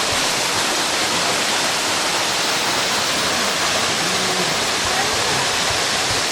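Waterfall rushing steadily into a pool, a loud, even roar of falling water, with a faint distant voice about four seconds in.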